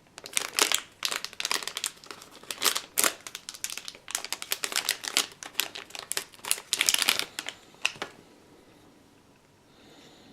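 Packaging crinkling and rustling as it is handled during unboxing, in quick irregular crackles that stop about eight seconds in.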